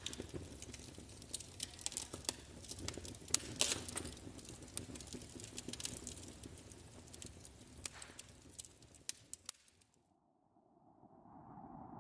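Faint, irregular crackling and popping over a low rumble. It dies away about ten seconds in, and near the end a low swell begins to rise.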